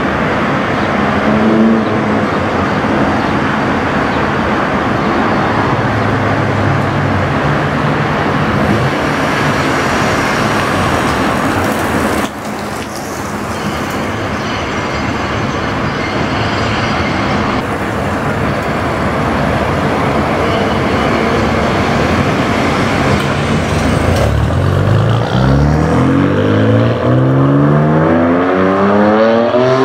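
BMW F8X M3/M4's S55 twin-turbo inline-six, through a Fi valvetronic cat-back exhaust with catless downpipe, accelerating hard toward the camera near the end, its note climbing steeply in pitch. Before that, a steady loud rushing noise.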